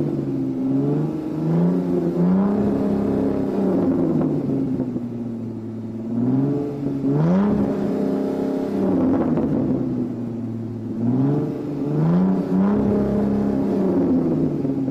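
Supercar engine revving up and easing off again, about three times. Each time the pitch climbs, partly in steps, then falls away more slowly.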